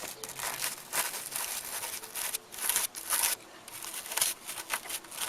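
Irregular scratchy rubbing and crinkling strokes of the turntable's mechanism being wiped clean by hand.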